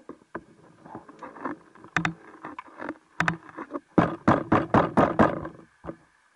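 Sharp clicks and knocks heard underwater, irregular at first, then a rapid run of about seven loud clicks, about five a second, just past the middle.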